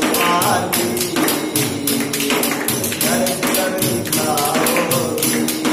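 A hand-held jingle percussion instrument struck by hand in a steady rhythm, about four to five bright jingling strikes a second, over a melody as accompaniment to a devotional song.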